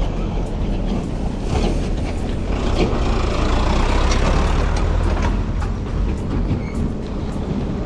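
Wind rushing over the microphone of a moving bicycle on a paved road, with road traffic passing. A vehicle swells past from about two and a half to five seconds in.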